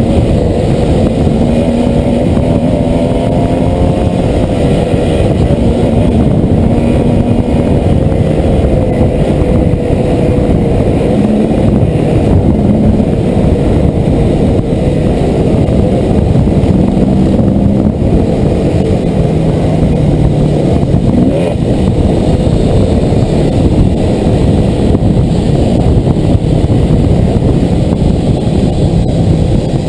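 Dirt bike engine running hard while riding, its pitch rising and falling with the throttle and gear changes, heard loud and close from the bike itself with rushing noise underneath.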